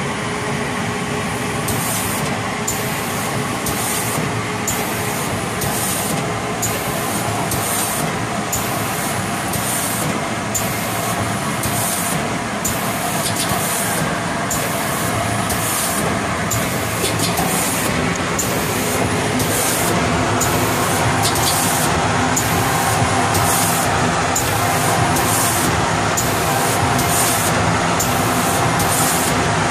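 Preferred Pack PP-5600 automatic L-bar sealer and shrink tunnel running: a steady machine hum and blower noise, with short hissing pulses repeating at an even beat, somewhat faster than once a second. The whole gets a little louder about two-thirds of the way in.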